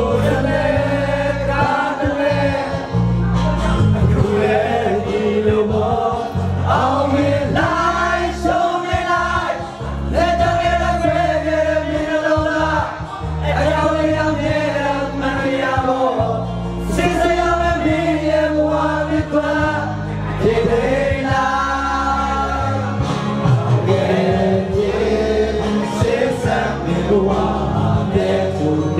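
A group of young men singing together into handheld microphones over amplified backing music.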